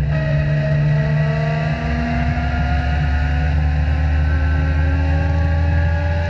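Legend race car's Yamaha four-cylinder motorcycle engine running hard at high revs, heard from inside the car. The engine note climbs slowly and steadily as the car accelerates.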